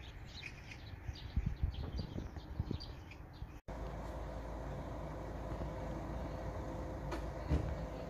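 Gulls giving short, faint calls over a low rumble; about three and a half seconds in, the sound cuts abruptly to a steady vehicle engine hum with a constant tone, with a couple of faint knocks near the end.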